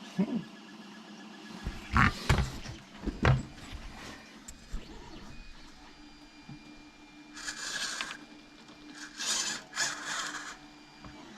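Knocks about two and three seconds in, then several short scraping bursts later on, as the RC K700 tractor model is handled and its new steering tried out. A 3D printer runs steadily underneath.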